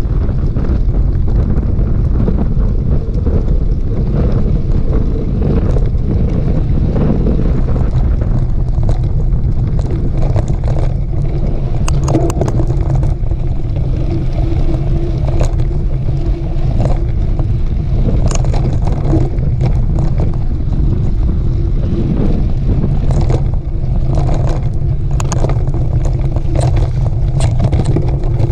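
Heavy wind buffeting the microphone of a camera on a mountain bike ridden along a dirt trail, with scattered clicks and rattles from the bike over the rough ground.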